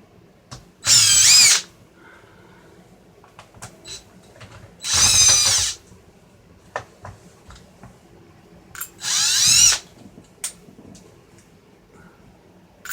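Small electric screwdriver or drill running in three short bursts, about four seconds apart, its motor pitch rising and falling as it backs screws out of a car radio's housing, with light clicks of handling in between.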